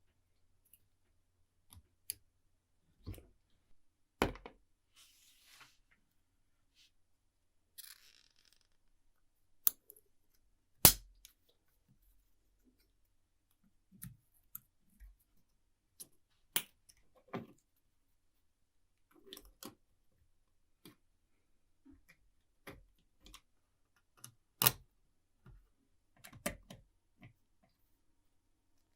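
Irregular clicks and light knocks of small metal parts and hand tools handled on a workbench, the sharpest near the middle and near the end, with two brief hissing scrapes early on.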